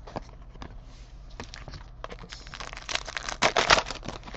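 Crinkling and rustling of a card-pack wrapper while trading cards are handled, with scattered light clicks. A louder stretch of crinkling comes from about two seconds in, loudest near the end.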